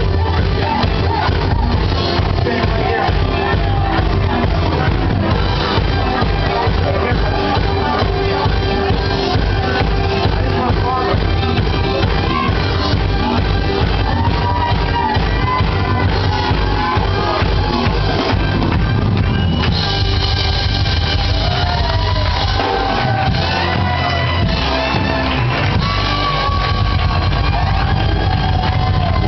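A live disco-funk band with drums, electric guitar, trumpet and singing, playing loudly to a steady beat. It is heard from within the audience in a large hall.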